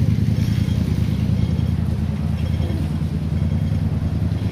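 Steady low rumble of motor vehicle engines, with a few faint high tones over it.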